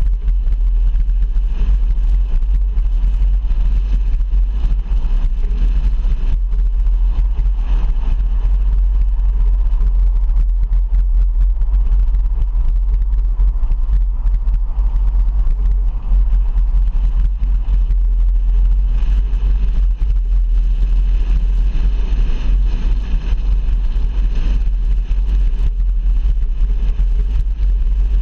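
A car driving along a highway: steady, loud, low rumble of road and engine noise.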